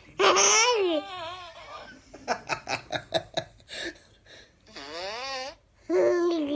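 A 9-month-old baby boy belly-laughing in several loud, high-pitched bursts, with a quick run of short laughs in the middle.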